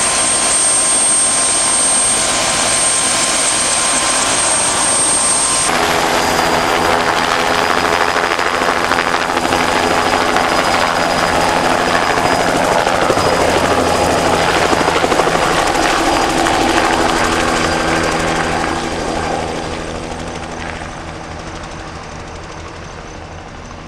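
Bell crop-dusting helicopter flying close by, its rotor and engine running loudly. The sound changes abruptly about six seconds in and fades steadily over the last five seconds as the helicopter flies away low over the field.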